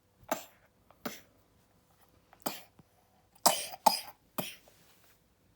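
A child coughing six times over about five seconds, the last three coughs coming close together.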